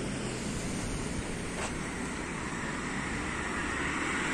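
Steady outdoor rushing noise that swells near the end, with one faint click partway through.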